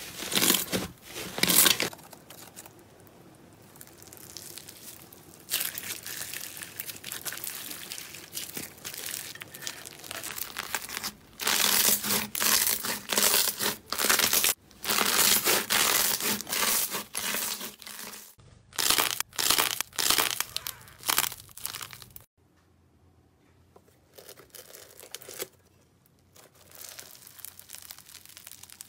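Hands squeezing, pressing and stretching fluffy slime, giving runs of many small pops and clicks, with quieter stretches between the clips.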